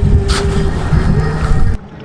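Boat motor running at trolling speed under heavy wind rumble on the microphone. The sound cuts off suddenly near the end.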